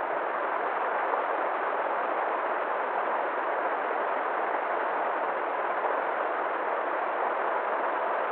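River water flowing, a steady even rush with no change in level.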